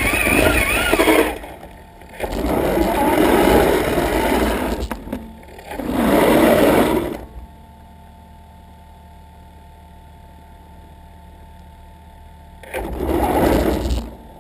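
Traxxas Summit RC truck's electric motor and drivetrain whirring in four bursts of driving, with quieter pauses between, the longest near the middle, as the truck pushes snow with its plow blade.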